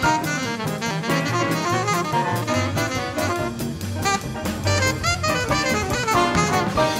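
Big band jazz: an alto saxophone solo over drum kit cymbals, with trombones and brass playing behind it.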